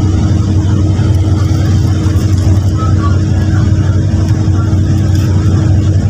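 Cabin noise of a moving air-conditioned coach bus: a steady low rumble of engine and road with a constant hum.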